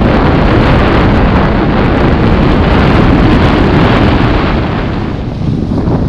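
Loud wind buffeting a GoPro Hero7 Black's microphone during a snowboard run, mixed with the board sliding over packed snow. The rush eases briefly about five seconds in, then picks up again.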